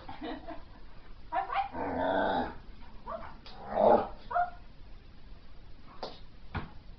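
Akita dog growling and giving short barks, the loudest bark about four seconds in.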